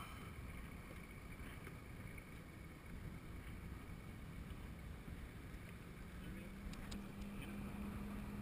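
Low rumble of wind on the microphone and water around a small boat. About six seconds in, a steady engine hum from a passing motorboat rises in and holds.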